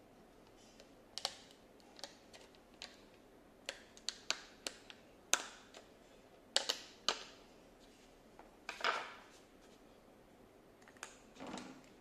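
Irregular sharp clicks and taps from a hard clear plastic SSD case being opened and handled, with a longer crackle about nine seconds in.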